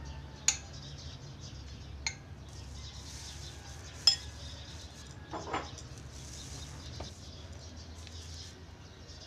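A spoon and china clinking a few separate times as strawberry sauce is spooned into a glass dessert bowl on a saucer; sharp clinks come about half a second, two seconds and four seconds in, the last the loudest, over a steady low hum.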